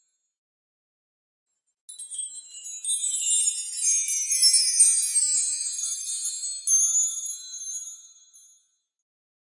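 Tinkling metallic chimes: a cluster of high ringing notes that begins about two seconds in, swells, and dies away near the end, with dead silence either side.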